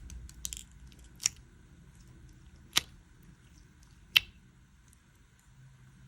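Slime being squeezed and stretched by hand, making a short crackle near the start and then three sharp pops about a second and a half apart.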